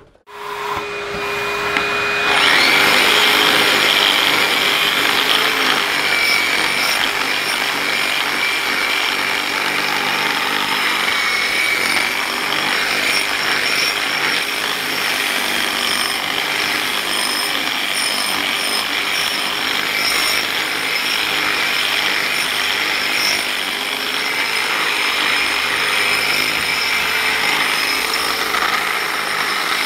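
Handheld angle grinder with a diamond pad grinding a concrete slab. The motor comes up to speed over the first two seconds, then runs steadily, a high whine over the grinding noise.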